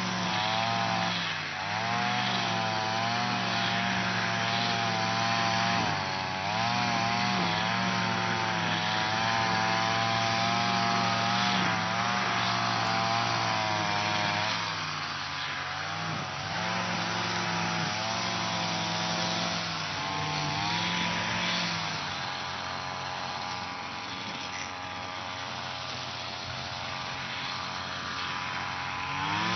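Lawn mower engine running steadily, its pitch dipping briefly and recovering several times.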